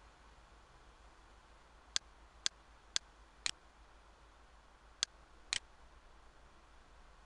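Computer mouse button clicking six times: four sharp clicks about half a second apart, then a pause and two more, over a faint steady hiss.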